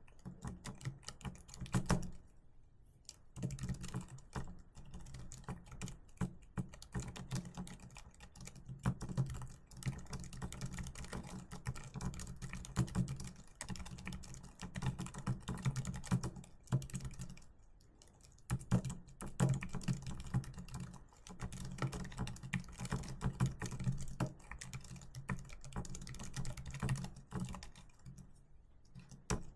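Continuous fast typing on a keyboard, a dense stream of key clicks with a few brief pauses.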